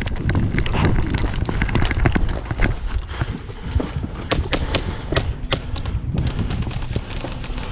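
A player running in airsoft gear: heavy irregular footfalls and gear jostling, with scattered sharp clicks of airsoft gunfire and BB impacts, thicker in the second half.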